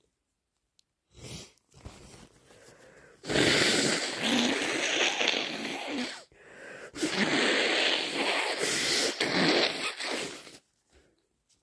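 A person blowing a heavily congested, snotty nose: two long blows of about three seconds each, the first starting about three seconds in, after a brief, quieter burst about a second in.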